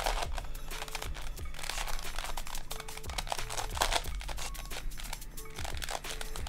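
Plastic puzzle sphere (an 8-colour Spanish Sphere, a Marusenko Sphere replica) being twisted by hand: irregular clicking and scraping of its plastic pieces as the layers turn, over faint background music.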